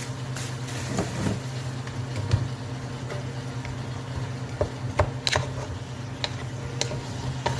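A steady low hum, with scattered clicks and knocks of cooking utensils against a pot.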